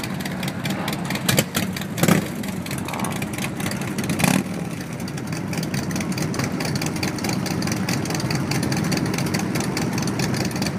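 Motorcycle engines running in a continuous low rumble. Short, loud throttle blips come about one and a half, two and four seconds in.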